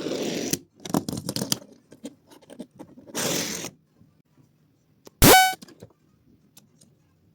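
Toy cars clicking and scraping as they are handled and rolled, then one short, loud horn honk about five seconds in that rises in pitch at its start.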